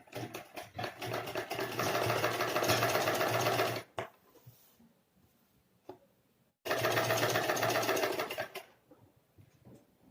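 Sewing machine stitching a fabric strip onto a neckline in two runs: the first picks up speed over its first second or so and runs about four seconds, and after a pause with a single click the second runs about two seconds.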